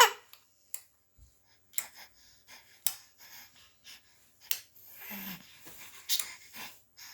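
Baby's excited breathy panting: short, irregular huffs and gasps.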